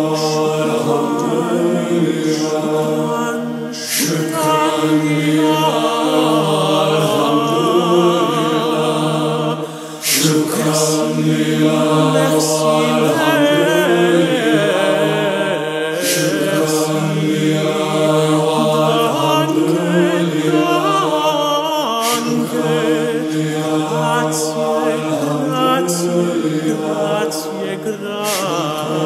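Men's choir singing sustained, chant-like chords over a low held note, with a voice weaving quick vibrato lines above them; the singing dips briefly about ten seconds in.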